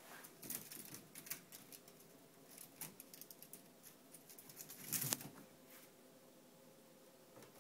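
A kitten's claws scratching and clicking on a woven scratching post, a scatter of small sharp ticks. A louder scuffle and thump about five seconds in as it jumps off the post.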